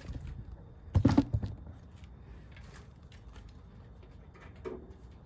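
Handling noise as screws are being removed from the freeze dryer's panel: a short cluster of knocks and rattles about a second in, then scattered small clicks and taps.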